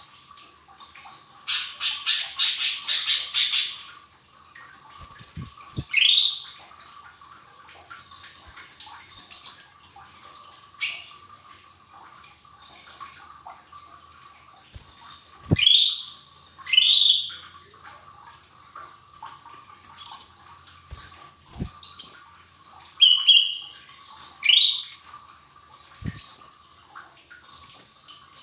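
Lesser green leafbird (cucak ijo mini) calling: short, sharp, sweeping call notes repeated every second or two, with a rapid chattering burst about two seconds in. This is a lure call meant to set other leafbirds singing.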